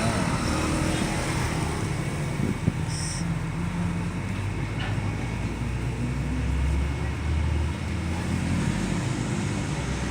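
Steady low rumbling background noise, like road traffic, under faint voices, with a brief high chirp about three seconds in.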